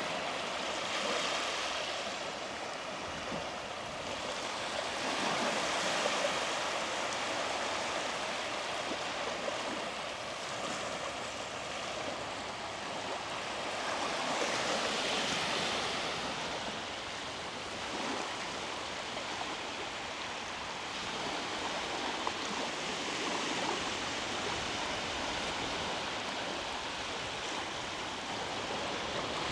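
Sea waves breaking and washing up the beach: a steady hiss of surf that swells and fades every several seconds.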